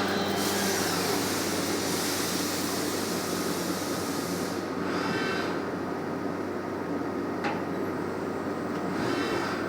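CNC machining centre running, with a steady machine hum. A hiss stops about four and a half seconds in. A short whir comes near the middle and again near the end, with a single click in between.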